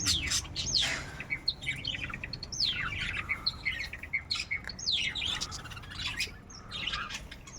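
A flock of budgerigars chattering, with many short chirps and quick downward-sweeping calls overlapping throughout.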